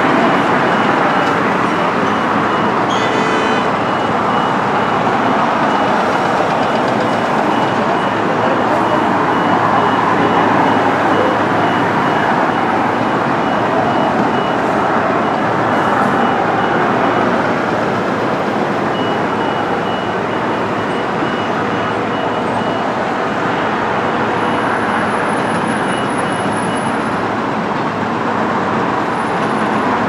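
Steady din of heavy construction machinery working, mixed with traffic noise, with a faint high-pitched beeping through much of it.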